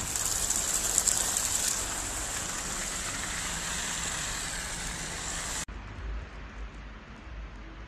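Traffic on a snow-covered street: a steady, loud hiss, cut off suddenly about five and a half seconds in, after which only a fainter hiss and low rumble remain.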